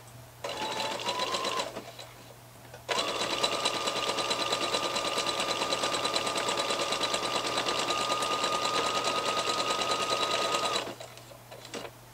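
Domestic electric sewing machine stitching the seam of a ribbed cuff: a short burst of about a second with the motor whine rising as it speeds up, then after a pause a steady run of about eight seconds, the needle going in a rapid even rhythm.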